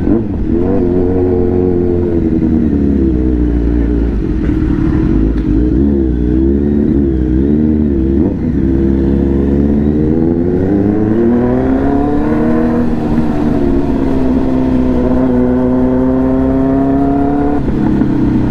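Kawasaki Z900's inline-four engine through an aftermarket Arrow full-system exhaust at low speed, the throttle blipped up and down several times in the first half. About ten seconds in the revs climb in one longer pull, then hold steady.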